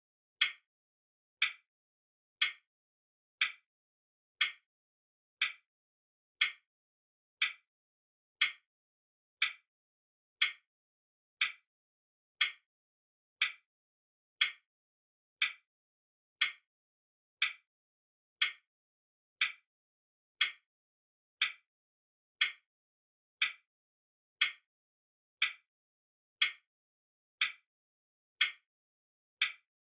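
Clock ticking steadily, one tick a second, each a short double click, with silence between ticks.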